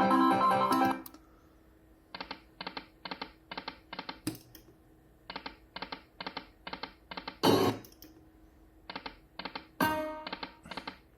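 Slot machine game sounds: a short jingle, then runs of quick clicks about three a second as the reels stop one after another on successive spins, with brief jingles in between.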